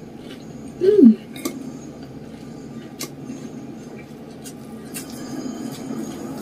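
A short falling 'mm' from a person's voice about a second in, then quiet close-up chewing with scattered light clicks and crackles as fingers pick at fried tofu and egg on a metal plate.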